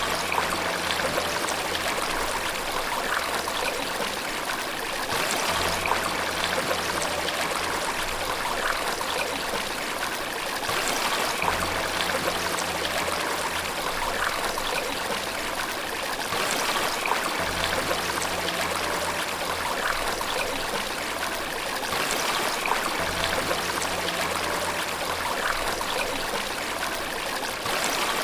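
Steady running water, the continuous splash and trickle of a stream or small waterfall. Under it, faint low held tones change every five or six seconds.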